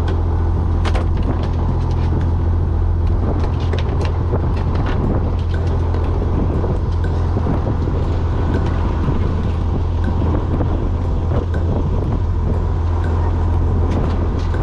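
Fishing boat's engine running with a steady low drone, under scattered knocks and clicks from work on the deck, clustered about a second in and again around four to five seconds in.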